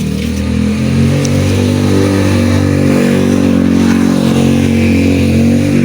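A small engine running steadily, its pitch rising and falling a little as the speed changes.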